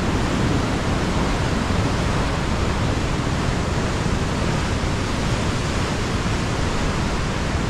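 Petrohué Falls' whitewater rushing steadily, an even, unbroken wash of water noise.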